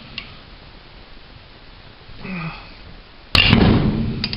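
Handling noise from fitting a cutoff disc to a cordless angle grinder: mostly quiet, then a sudden sharp knock with a short rattle about three seconds in, and a few small clicks near the end.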